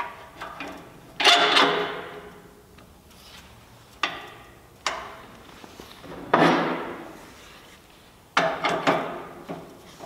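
Metal tool rest parts of a wood lathe clanking and scraping as the tool rest extension arm and tool rest are slid and seated into their holders. About five separate clanks, each ringing briefly: one about a second in, two close together around four to five seconds, one near six seconds and one near eight seconds.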